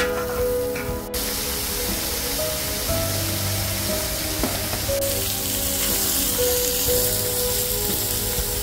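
Meat frying on a hot griddle pan, a steady sizzle that gets louder about a second in, with background music playing over it.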